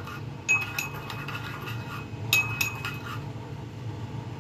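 A spoon stirring barbecue sauce in a small bowl, clinking against the sides in two short runs of ringing taps, about half a second in and again past the two-second mark.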